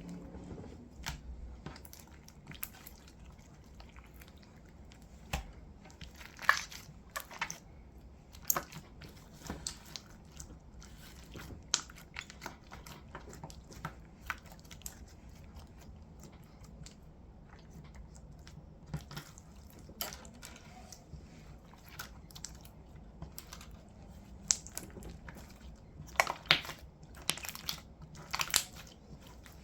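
Slime and modelling clay being squished and mixed by hand: irregular sticky clicks and crackles, with louder bursts about a quarter of the way in and again near the end.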